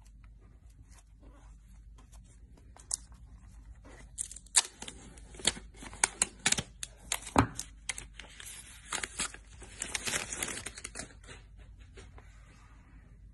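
Plastic shrink-wrap being torn and peeled off an iPhone 11 Pro Max box: crackling and crinkling with sharp snaps, busiest from about four to eleven seconds in, among lighter clicks of the box being handled.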